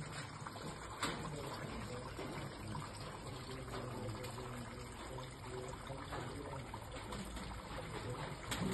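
Water trickling and splashing steadily, as from a small artificial waterfall in a decorative tableau, with people talking faintly underneath.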